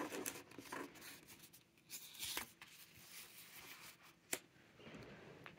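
Stiff paper swatch cards being handled: a stack of card stock rubbed and slid apart, with soft rustles and scrapes, and a card tapped down onto the table about four seconds in.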